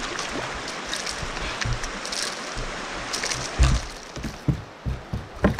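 Water sloshing and splashing beside a plastic fishing kayak over a steady rush of moving river water, with a few dull knocks on the hull in the second half.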